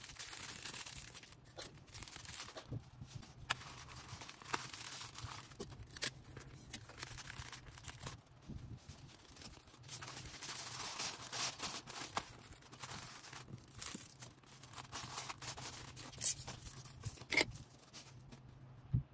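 Plastic packaging crinkling and rustling as orders are packed by hand, with scattered sharp clicks and taps. A faint low hum runs underneath.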